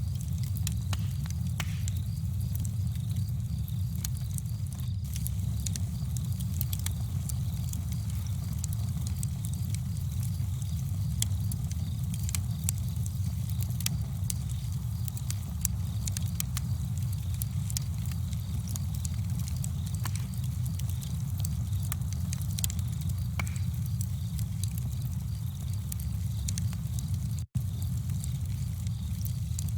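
Campfire crackling: sharp irregular pops and snaps over a steady low rumble of burning. The sound cuts out for an instant near the end.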